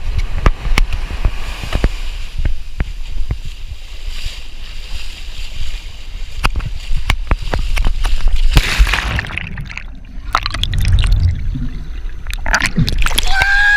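Ocean surf splashing and sloshing as people charge into the shore break, with knocks and low rumble from wind and handling on the microphone. About nine seconds in a wave rushes through; after that the sound turns dull as the high end drops away. Near the end a voice cries out.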